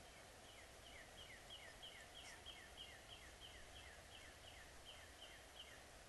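A songbird singing faintly: a long, even series of repeated two-part notes, each a high note dropping into a lower slurred one, about three a second, stopping near the end.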